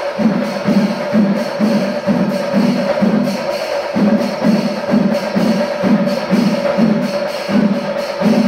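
Kerala chenda melam: massed chenda drums and ilathalam cymbals playing the kalasam, the climactic passage of the melam. It is a loud, steady beat of about two drum strokes a second, with a held high note running over it.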